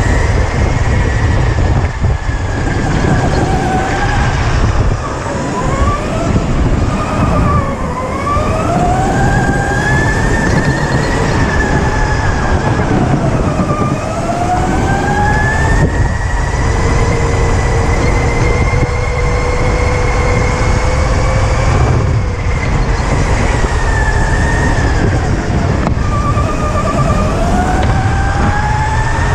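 Electric go-kart's motor whining, its pitch climbing as the kart accelerates and sliding down as it slows for the corners, over a steady low rumble.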